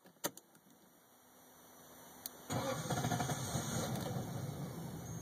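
A start attempt on a 1998 Lexus LS400's 1UZ V8: after a click near the start, the engine is cranked from about halfway in, loud at first, then fading. The car has a no-start problem.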